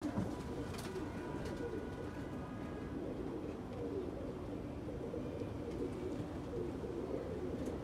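Domestic pigeons cooing continuously.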